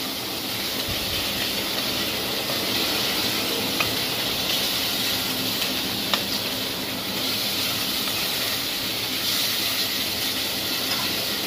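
Pork spare ribs frying in sesame and corn oil in a stainless steel pot: a steady sizzle, with a couple of faint clicks from metal tongs turning the meat.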